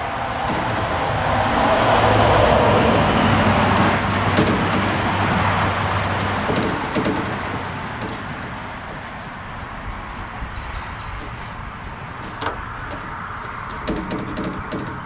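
A road vehicle driving past: its noise and low hum swell over the first two or three seconds and fade away by about eight seconds in, over a steady chirping of crickets. A few light knocks come near the end.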